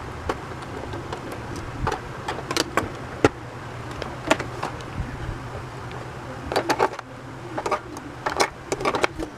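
Hard plastic clicking and knocking as a toy cash register is handled and AA batteries are fitted into its battery compartment: scattered sharp clicks, coming in quick clusters near the end.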